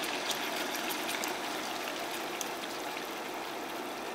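Cod fillets frying in olive oil in a pan: a steady sizzle with scattered crackles and pops.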